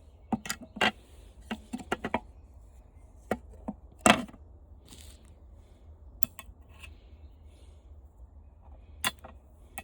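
Sharp knocks and clicks of hard plastic and metal fan parts being handled and set down, in short clusters, with the loudest knock about four seconds in.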